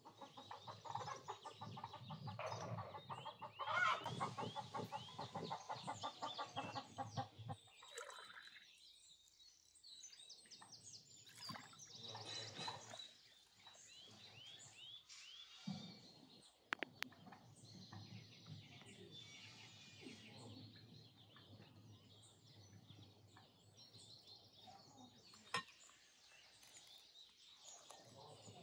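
Chickens clucking loudly and steadily for the first several seconds, then quieter clucks with small birds chirping. There are a couple of sharp clicks later on.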